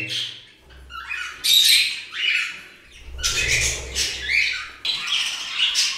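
Budgerigars and other small pet parrots squawking and chirping in quick bunches of short, high calls, with two brief lulls.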